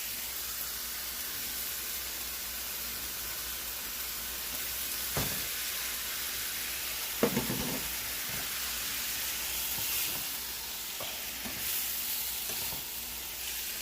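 Shrimp and stir-fry vegetables sizzling steadily in a hot pan, with a sharp knock about five seconds in and a louder knock with a short clatter a little after seven seconds.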